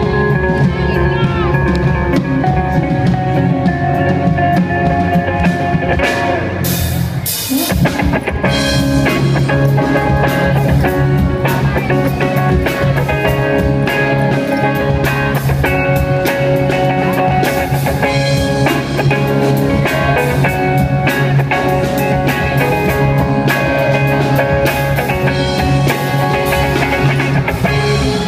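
Live rock band playing: drum kit, acoustic and electric guitars and a woman singing, heard through the venue's PA. Cymbals start crashing about seven seconds in as the drums kick up.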